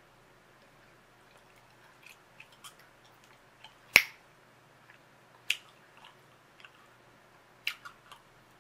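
Bubble gum being chewed: irregular soft clicks with three sharper snaps, the loudest about four seconds in.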